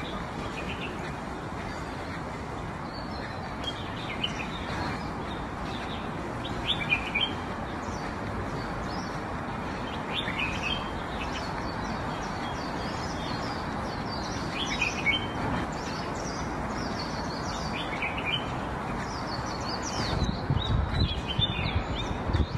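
Small birds chirping on and off over a steady outdoor background hiss, with some low rumbling near the end.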